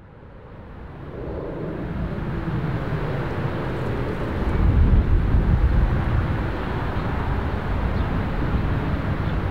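Jet engines of a taxiing Boeing 777-200ER (Rolls-Royce Trent 800s) running at low taxi power: a steady rumble and hiss that fades in over the first two seconds and swells briefly about five seconds in.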